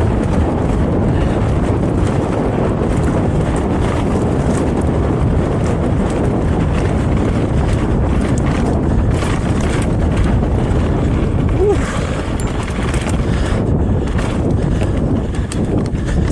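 Wind buffeting the microphone during a mountain-bike ride on a forest trail, over a steady rush of tyre and trail noise with scattered clicks and rattles.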